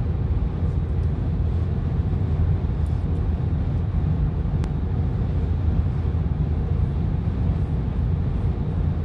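Steady low rumble of road traffic on a highway, holding even with no horn.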